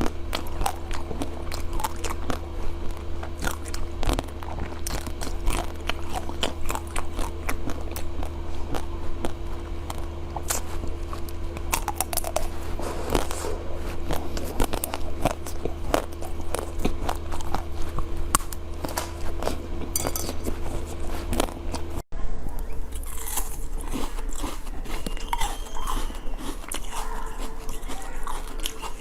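Close-miked biting and chewing of crunchy food, dense sharp crunches over a steady low hum. A brief drop-out about 22 seconds in, after which the crunching goes on over a quieter background.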